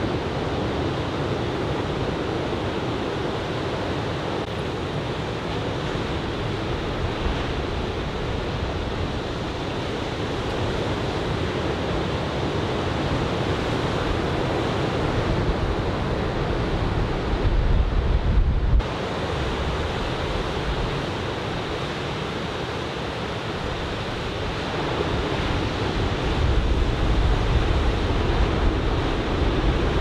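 Chest-high typhoon swell breaking on a sandy beach, a steady wash of surf, with wind rumbling on the microphone. The low rumble swells up around the middle and again near the end.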